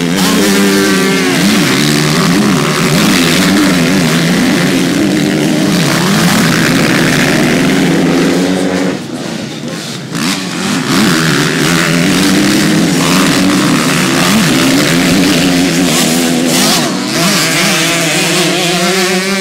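Motocross bike engines revving hard, pitch rising and falling as they accelerate and shift. The sound drops briefly about nine seconds in, then picks up again.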